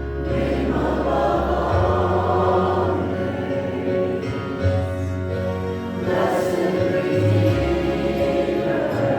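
Church worship music: several voices singing together over held low bass notes that change every second or two.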